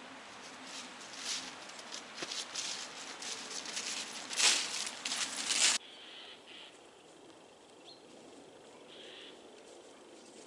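Footsteps crunching and rustling through dry leaf litter and twigs, getting louder as the walker comes close and loudest about four to six seconds in, then stopping abruptly. After that, quieter woodland ambience with a few faint bird calls.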